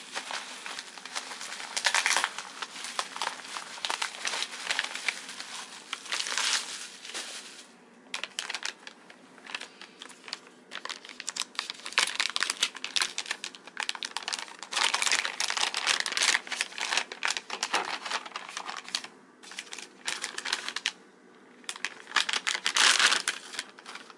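Plastic packaging crinkling and crackling in irregular bursts with short pauses, as bubble wrap and an anti-static bag are pulled open and off a circuit board.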